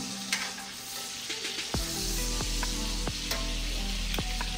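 Ribeye steak searing in a hot pan of browning butter: a steady sizzle with scattered sharp pops and spits.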